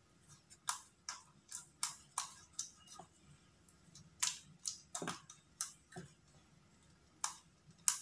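A pet hamster clambering about its cage: irregular sharp scratches and clicks, about fifteen in eight seconds.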